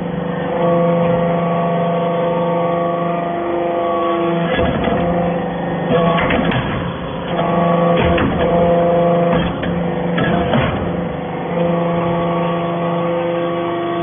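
Hydraulic briquetting press compacting cast iron chips into briquettes: a steady hydraulic pump hum with several tones, broken twice, about five seconds apart, by clattering and knocking as the press cycles.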